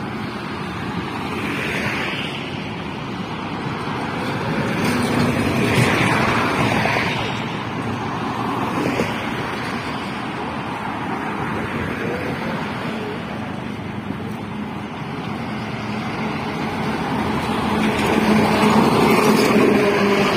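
Highway traffic passing close by: a steady rush of tyre and engine noise that swells as vehicles go past, loudest about six seconds in and again near the end, when a passing engine's hum comes through.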